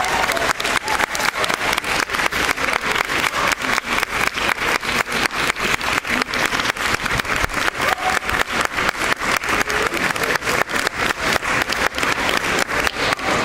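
Spectators applauding: one pair of hands clapping close by at about five claps a second, steady throughout, over the wider applause of the crowd.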